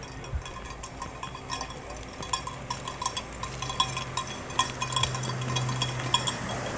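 Irregular light metallic clinking, several small ringing clinks a second, growing busier after about two seconds, over a steady low hum.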